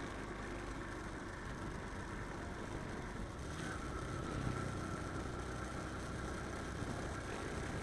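Motorcycle engine running at a steady cruise while riding, with steady road noise; a faint higher tone joins about halfway through.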